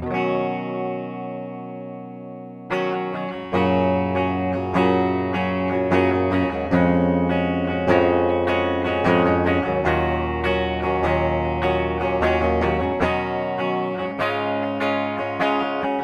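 Washburn XM STD2 electric guitar played through its Duncan bridge pickup. A chord is struck and left to ring and fade, then from about three seconds in comes a busy run of picked notes and chords.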